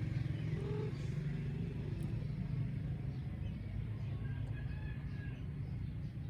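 Steady low mechanical rumble, with a faint short call about a second in.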